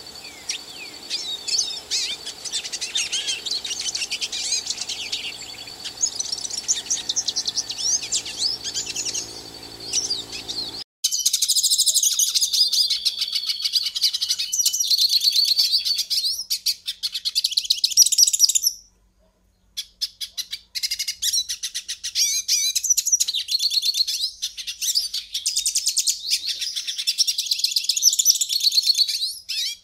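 Pintassilgo finch singing a long, rapid run of high twittering and trilling song. About eleven seconds in, a low background hum drops away abruptly and the song comes louder and cleaner. It breaks off for about a second in the middle, then resumes.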